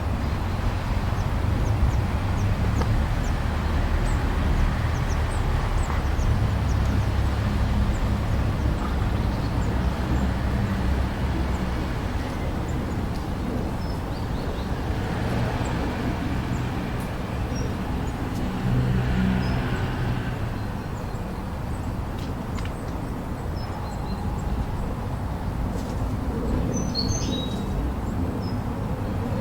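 Steady low rumbling ambient noise with small birds chirping over it, a few clearer chirps coming near the end.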